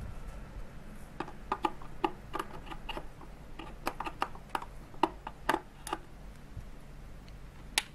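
Irregular light clicks and plastic taps as a lamp is handled and twisted into a plastic lampholder, with a sharper click near the end.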